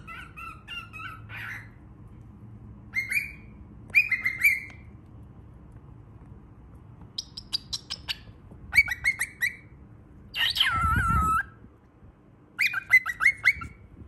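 Baby cockatiel chirping in quick bursts of short notes, with one longer, louder call about ten seconds in that falls in pitch.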